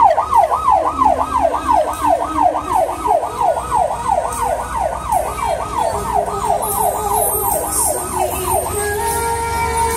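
Vehicle siren on a fast yelp, its pitch sweeping up and down about three times a second, from a funeral-service pickup's roof beacon. The siren stops about nine seconds in and music begins.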